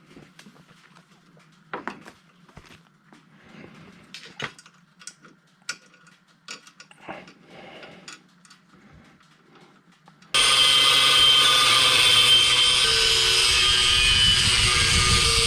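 Light clicks and taps of metal parts being handled, then about ten seconds in a power tool suddenly starts running, loud and steady.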